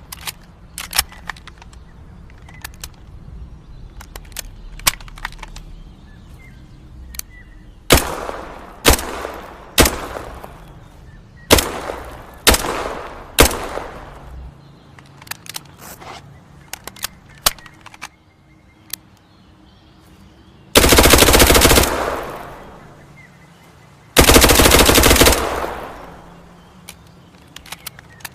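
MP5 submachine gun firing: faint clicks at first, then about six single shots spaced roughly a second apart, then two fully automatic bursts of about a second each. The bursts are the loudest part.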